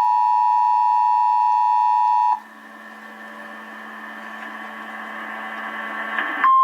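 Emergency Alert System attention signal: two steady tones sounding together that cut off about two seconds in. A quieter hiss with a low hum follows and slowly grows louder, and right at the end a single steady weather-radio alert tone begins.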